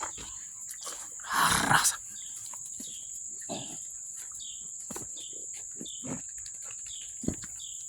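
American Bully puppy growling while pulling in a game of tug, with one louder burst of growling about a second and a half in.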